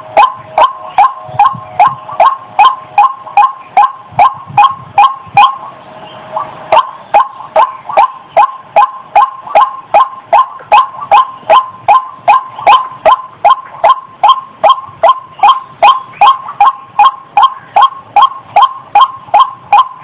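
White-breasted waterhen calling, a loud call note repeated over and over at about two calls a second, with a brief break about six seconds in.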